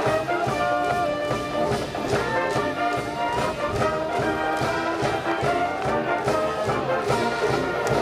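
School brass band playing, horns holding and changing chords over a steady beat.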